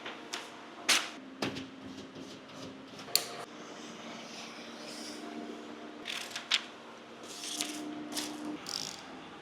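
Window tint film being handled and trimmed with a knife: scattered crinkles, scrapes and sharp clicks, loudest about one second and three seconds in, over a steady low hum.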